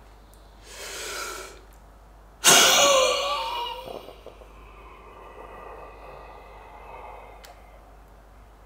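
A person doing a forced vital capacity manoeuvre into a spirometer. A deep breath in is followed, about two and a half seconds in, by a sudden hard blast of breath out. The blast fades into a long, steady exhalation that lasts several more seconds.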